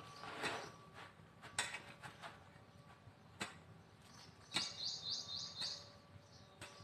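A garden hoe striking the soil several times as the ground is loosened, each hit a short sharp knock a second or so apart. About two-thirds of the way in, a bird gives a quick run of about four high chirps.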